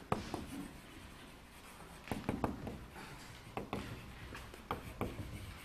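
Chalk tapping and scraping on a blackboard as a line of words is written, in short, irregular strokes.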